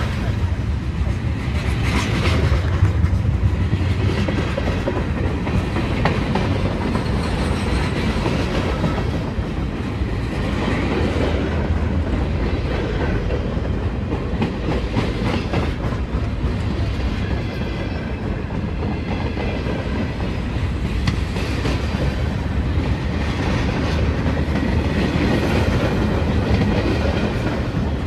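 BNSF train's cars rolling steadily past, wheels clicking and rumbling over the rails in a continuous run.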